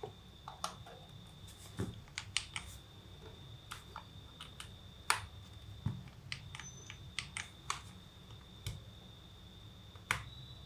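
Scattered light clicks and taps on a mechanical keyboard fitted with KTT Panda linear switches: about a dozen separate, irregular keystrokes. A faint steady high whine runs underneath.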